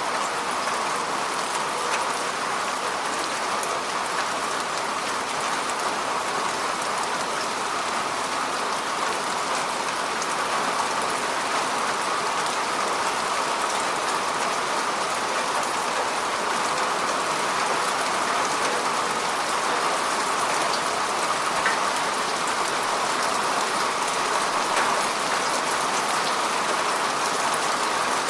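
Steady rain falling on the surface of a lake, a dense even patter with scattered individual drops ticking on the water.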